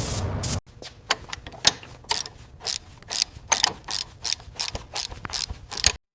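A steady spray hiss cuts off shortly after the start, followed by a run of sharp mechanical clicks and ratcheting, about two a second and uneven, which stops abruptly near the end.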